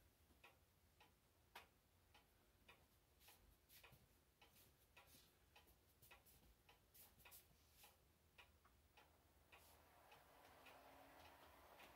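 Very faint, irregular clicking of a model train's wheels running over the rail joints, with the train's running noise growing louder near the end as it comes closer.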